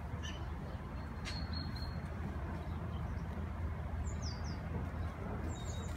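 Wild birds chirping in short, quickly falling calls that come in runs of three or four, with a brief thin whistle about a second in. Underneath is a steady low rumble, louder than the birds.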